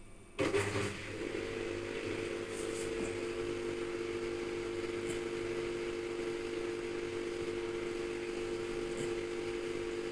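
Toshiba TWD-BJ120M4M inverter washer-dryer running with no water in it: a clunk as it starts, then a steady two-tone hum over a hiss. The hum cuts off suddenly at the end.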